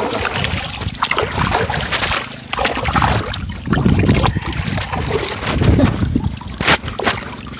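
Water splashing and sloshing irregularly.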